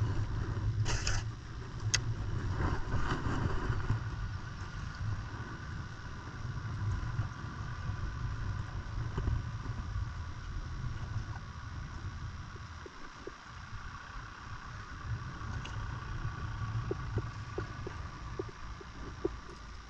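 Wind rumbling on the microphone over moving harbour water, with a couple of small clicks in the first two seconds.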